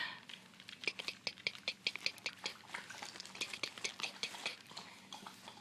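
A quick run of sharp clicks, about five a second, lasting a few seconds.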